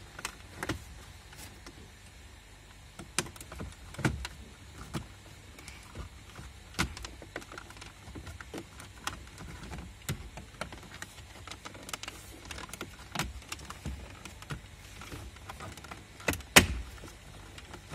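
Scattered clicks and knocks of hard plastic as the heater/AC control panel of a Renault Sandero is handled and pried loose from its dashboard mounting, with the loudest knock near the end.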